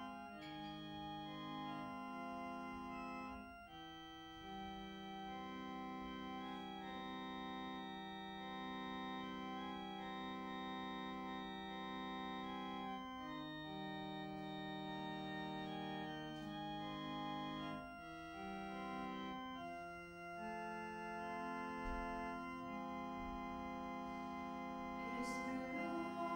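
Organ playing slow, sustained chords that change every few seconds. Near the end a singing voice begins to come in over it.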